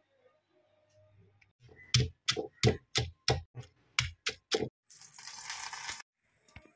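Heavy stone pestle pounding green chillies and garlic in a stone mortar: about ten sharp stone-on-stone knocks with a low thud, roughly three a second. Then about a second of hissing from oil in a hot aluminium kadai, and a few faint clicks.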